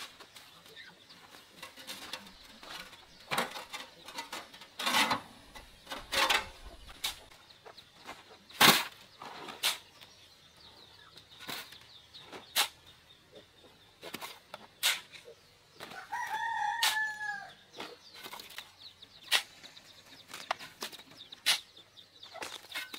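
A rooster crows once, one call of about a second and a half that drops in pitch at its end, about two-thirds of the way in. Around it come scattered sharp knocks, the loudest a little over a third of the way in, and two short noisy bursts about a quarter of the way in.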